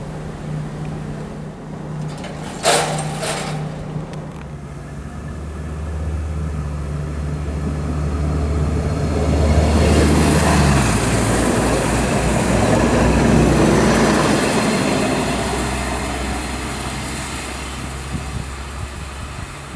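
Class 643 diesel railcar approaching and passing close by, its diesel engines running steadily. It is loudest as it goes by about ten seconds in, with the engine note dropping in pitch, then fading as it runs away. Two sharp clicks come a little under three seconds in.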